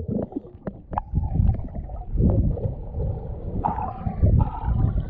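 Underwater sound heard through a camera housing: a diver's exhaled air bubbling out of a US Divers DA Aquamaster double-hose regulator, an irregular low gurgling rumble with scattered clicks.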